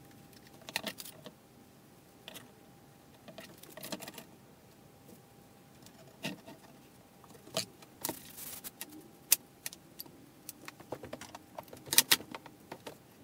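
Metal bar clamps clinking and clattering as they are fitted to and taken off a small wooden frame, with wooden pieces knocking on the bench. Separate knocks and clicks throughout, a short scraping rush about eight seconds in, and the loudest pair of sharp clacks near the end.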